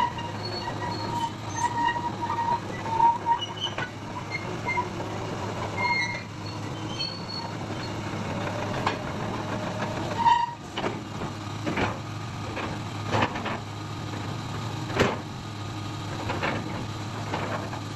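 Doosan DX225LCA excavator running steadily, with short metallic squeals in the first half and a series of sharp clanks and knocks through the second half.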